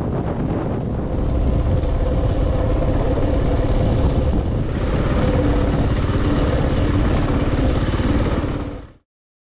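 Motorcycle engine running while riding, heard from the bike with heavy wind rumble on the microphone. It cuts off abruptly near the end.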